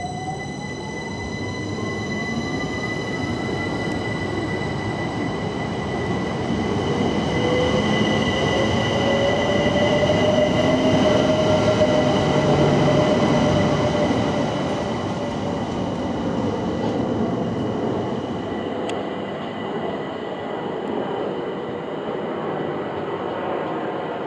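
London Overground Class 378 electric multiple unit pulling out: its traction motor whine rises steadily in pitch as it accelerates over the first few seconds, then the rumble of the carriages grows to its loudest around the middle as they run past. Near the end a second train rumbles in on its approach.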